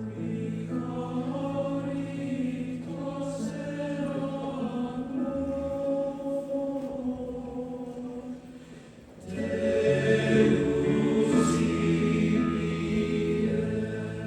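Choir singing sustained phrases, with a louder, fuller entry about nine seconds in.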